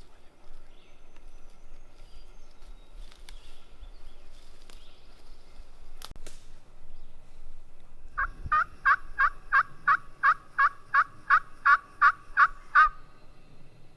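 A turkey call run as a string of about fifteen hen yelps, roughly three a second, starting a little past halfway and stopping abruptly. It is used to draw a gobbler in. A single sharp click comes a few seconds before the yelps.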